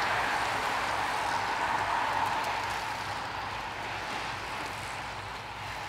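Tyres and freewheels of a pack of road bikes whirring past on asphalt, a steady hiss that gradually fades in the last few seconds as the group thins out.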